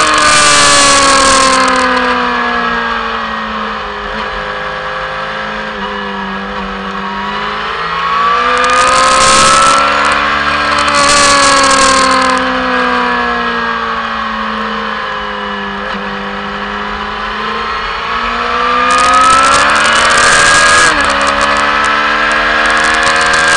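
Motorcycle engine on track, recorded from the bike. The engine note sinks as it slows and climbs again under throttle, twice, with bursts of wind rush on the microphone.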